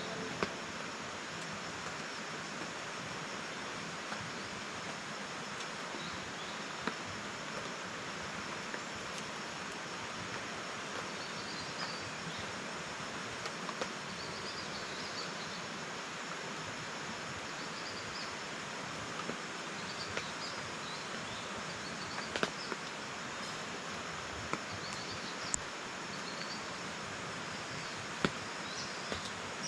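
Steady outdoor forest ambience: an even hiss with faint high chirping calls coming and going, and a few light ticks.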